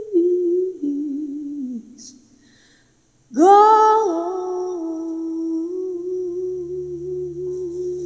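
A woman's voice humming wordless held notes with vibrato, then falling away in a few descending notes to a short pause. A new hummed note swells in with an upward slide about three seconds in and holds, wavering, with a low drone joining under it near the end.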